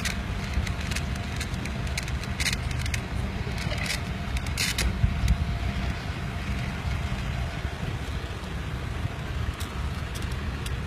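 Escort motorcycles and a car of a motorcade running at walking pace, a steady low engine rumble with a few short sharp clicks.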